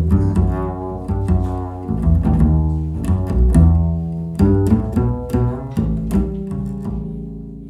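Music played through a compact nearfield studio monitor and picked up by a microphone: a run of plucked, decaying notes over a strong low bass line, fading out near the end.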